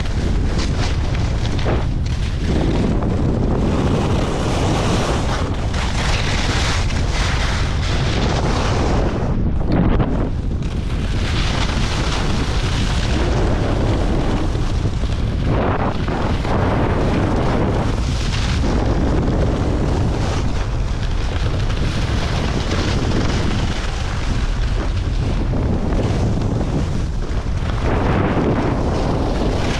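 Wind buffeting an action camera's microphone on a skier moving downhill, a loud steady rumble, with Head skis hissing and scraping over hard, chopped-up snow, the hiss swelling and fading every few seconds.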